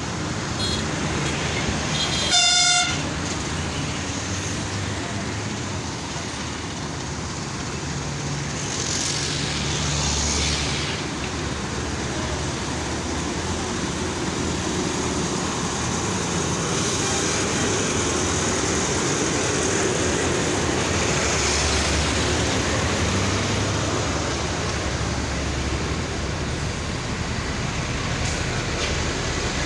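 Roadside traffic: buses and cars running and passing, with one short, loud vehicle horn toot about two and a half seconds in. Several vehicles swell past later on.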